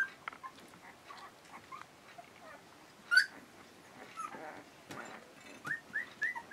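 Twelve-day-old Akita puppies squeaking and whimpering: short, high, rising squeaks, one loud one about three seconds in and a quick run of them near the end.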